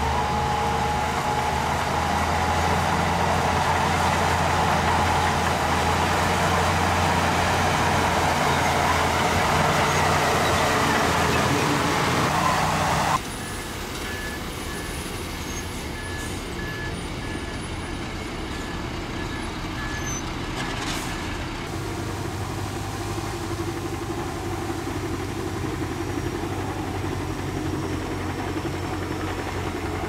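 Heavy diesel earthmoving machinery running steadily at work. About 13 seconds in, the sound cuts abruptly to a quieter engine running, with a faint beep repeating about twice a second for several seconds.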